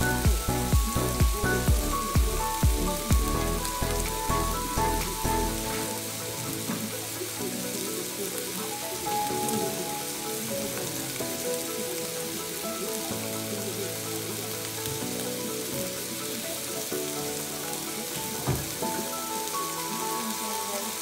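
Prawns, mussels and chopped onion sautéing in a pan, a steady sizzle. Background music plays over it, with a steady beat of about two thumps a second for the first six seconds before the beat drops out and the melody carries on.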